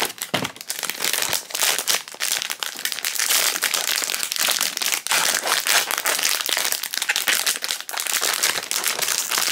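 Foil blind bag crinkling and crackling continuously as hands crumple and pull at it to open it, with a rapid run of fine crackles throughout.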